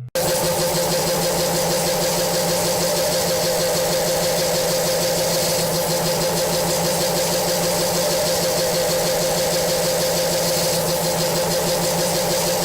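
Harsh noise music: a dense, steady wall of distorted noise with a droning hum, cutting in abruptly after a brief dropout.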